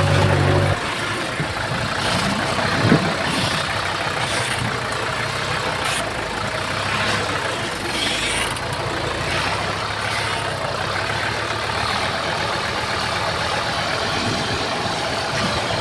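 Diesel engines of heavy earthmoving machinery running steadily. A louder low engine drone cuts off suddenly under a second in, and there is a single short knock about three seconds in.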